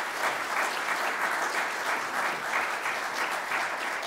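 Audience applauding: a steady round of clapping from many people.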